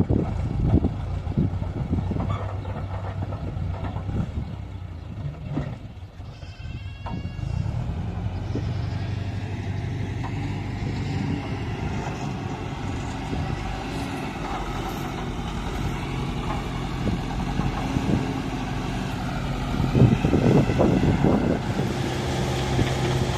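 Excavator's diesel engine running steadily while digging, with clusters of sharp knocks at the start and again about twenty seconds in.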